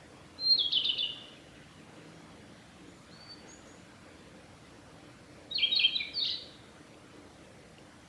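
Male narcissus flycatcher singing: two short, quick song phrases of repeated clear notes, one near the start and one about five seconds later.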